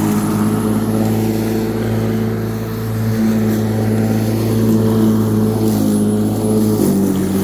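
Black and Decker 1800 W electric lawnmower running with a steady motor hum; the pitch drops briefly near the end.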